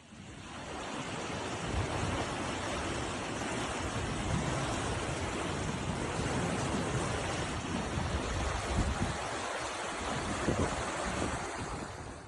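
Fast-flowing spring meltwater rushing and churning in a steady roar, with wind gusting on the microphone. It fades in at the start and out at the end.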